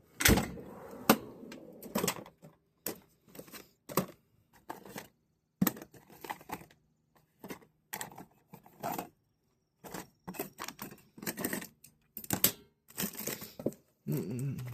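Rummaging through small tools and objects: an irregular run of clicks, knocks and clatters as things are picked up, moved and set down.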